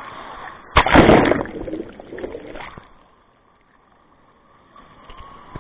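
Seawater splashing and sloshing against the microphone, with a loud rush of water about a second in. It then fades until the sound drops almost away for a couple of seconds.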